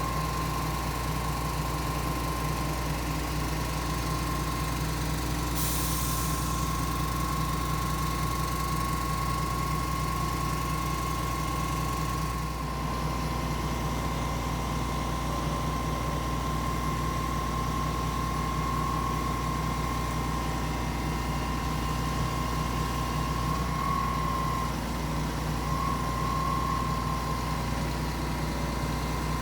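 Putzmeister 47-metre truck-mounted concrete boom pump running steadily, its engine drone carrying a constant high-pitched whine. A brief hiss comes about six seconds in.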